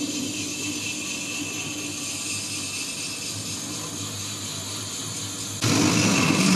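An 8-inch, 13-insert shell mill on a Rottler EM105H machining centre face-milling the deck of a Caterpillar C175-20 engine block at 250 RPM. It makes a steady mechanical cutting noise while rough-cutting the deck surface. Near the end the sound jumps suddenly louder and higher, with the cut now played at three times speed.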